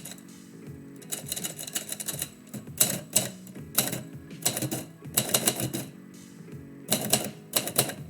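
Typewriter keys striking in quick runs of clicks with short pauses between, as a poem is typed, over quiet instrumental background music.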